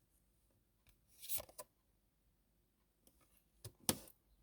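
Faint handling of tarot cards: a short rustle about a second in, then a sharp click and brief rustle near the end.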